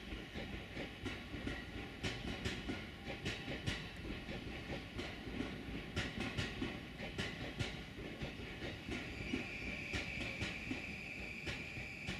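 Electric train running past, its wheels clicking rhythmically over the rail joints. A steady high tone comes in about three-quarters of the way through.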